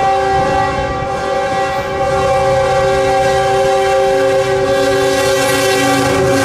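Kansas City Southern GE locomotive's Nathan Airchime K5HL-series five-chime air horn sounding one long, unbroken blast, getting a little louder about two seconds in.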